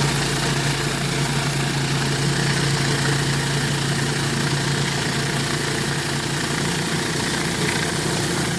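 Pressure washer running steadily while a concrete rotary surface cleaner sprays water onto a driveway: an even engine hum under a strong, steady hiss of water jets.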